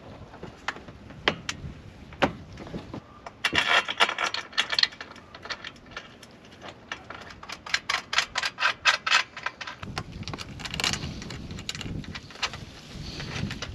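Clicks, taps and knocks of a solar panel's metal frame and its L-bracket mounting hardware being handled, set down and lined up on the camper roof, with some rubbing. The clicks come in quick clusters, one about three and a half seconds in and a longer run a little past the middle.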